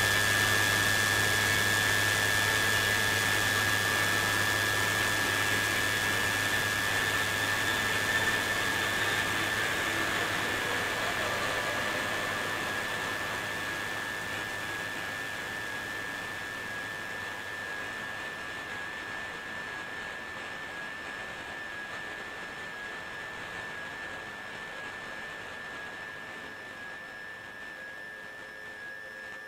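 A steady high-pitched whine over a loud rushing hiss and a low hum; the hiss and hum fade away gradually over the half minute, leaving mostly the thin high whine.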